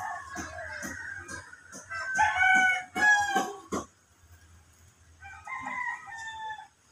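Rooster crowing, several long crows one after another, the loudest about two seconds in and another near the end.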